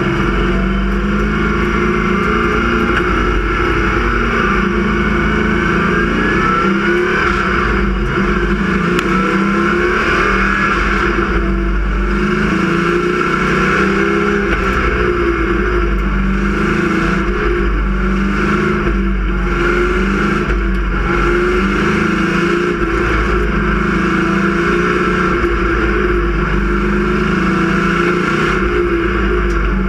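Sportsman stock car engine heard from inside the cockpit, running loud and steady at low speed, its pitch rising and falling a little with the throttle.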